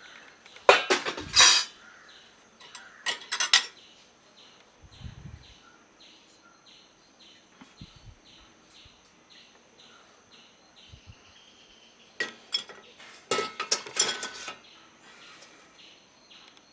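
Washed dishes and cutlery clinking against each other as they are handled and taken out of a dishwasher rack, in three short bursts: about a second in, around three seconds in, and again near the end.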